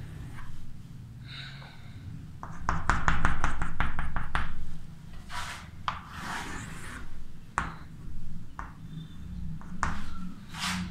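Chalk on a blackboard: a quick run of short taps, about seven a second, a few seconds in, as hatching marks are drawn, then longer scraping strokes and single taps as curves and a straight line are drawn.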